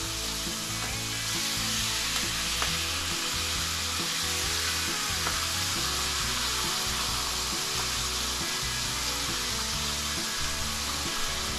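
Food sizzling steadily as it fries in a hot frying pan.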